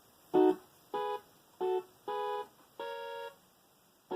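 Electronic keyboard playing five short chords in a steady, organ-like tone, imitating a locomotive's K5H air horn chord. The notes change from one blast to the next while the fingering is being found.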